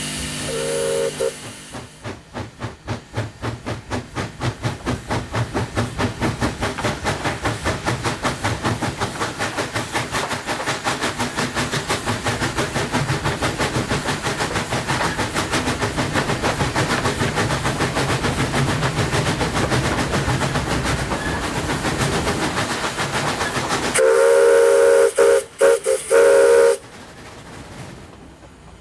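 Narrow-gauge steam locomotive Mileai gathering speed. The exhaust beats from its chimney start slow and quicken into a rapid, steady chuffing. A short whistle toot sounds about a second in, and a loud whistle blast of about three seconds, briefly broken twice, comes near the end.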